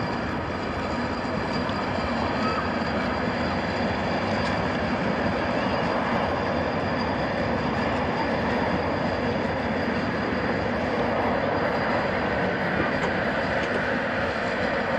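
Train running through a railway station: a steady rumble of wheels and engine that grows a little louder about two seconds in.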